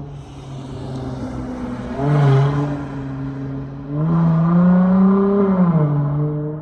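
Dodge Charger SXT's V6 exhaust through a Flowmaster Super 10 muffler, idling with a short rev about two seconds in. A longer rev follows about four seconds in, held for about two seconds before it drops back to idle.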